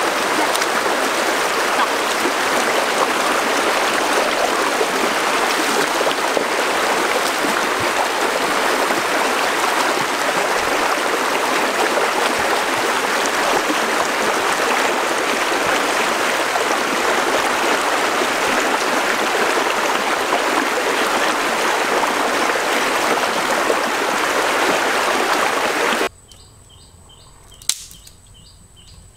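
Shallow stream running fast over rocks, a steady rush with splashing from people sitting and wading in the water. About 26 seconds in it cuts off abruptly, leaving a much quieter background with regular high chirping and one sharp click.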